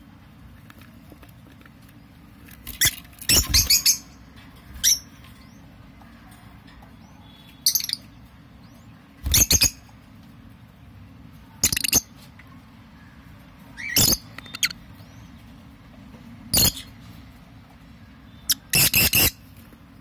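Peach-faced lovebirds, a parent with its chicks in the nest, giving short, shrill calls about every two seconds. A few of the calls come as quick rattling bursts lasting about half a second.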